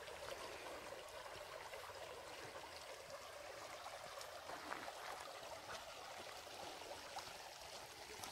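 Shallow creek flowing over stones and gravel: a faint, steady trickle of running water.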